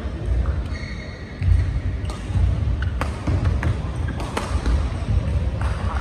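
Badminton rally on an indoor court: several sharp racket strikes on the shuttlecock, roughly a second apart, with brief shoe squeaks on the court floor early on and footfalls, over a steady low rumble in the hall.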